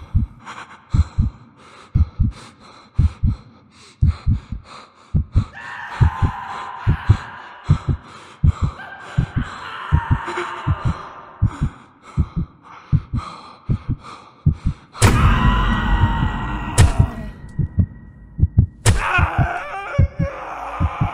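Horror sound design: a slow heartbeat thumping in pairs about once a second, under an eerie drone that swells in the middle. About three-quarters of the way through comes a loud sudden hit with a deep rumble, followed by two sharp cracks.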